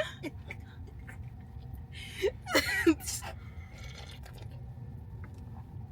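Steady low rumble of a car's interior on the move, with a person's short breathy vocal sound about two and a half seconds in.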